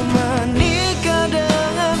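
Indonesian pop love ballad playing: a held, wavering melody line over a steady bass, with a few light drum hits.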